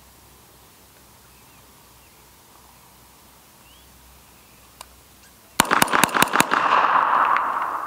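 After about five and a half seconds of quiet, a CMMG Guard .45 ACP carbine fires a rapid string of about eight shots in under a second, the echo trailing off afterwards.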